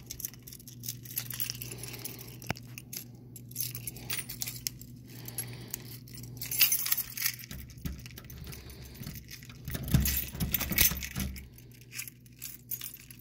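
Keys jingling and clinking irregularly in a hand as it moves, with a few louder clinks, over a steady low hum.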